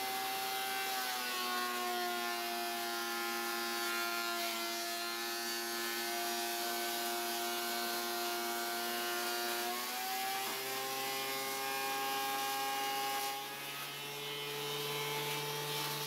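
Benchtop thickness planer running as thin maple strips are planed down to a quarter inch. Its motor pitch drops about a second in while the strips pass through the cutterhead and climbs back about ten seconds in as they clear.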